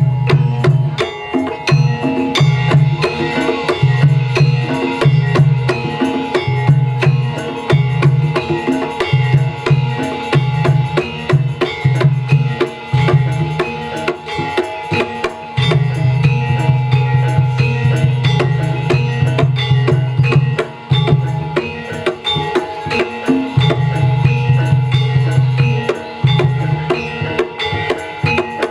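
Javanese gamelan music for a jaranan dance, driven by fast kendang drumming: dense, rapid drum strokes over a low throbbing note that drops in and out every second or two, with a steady held metallic tone above.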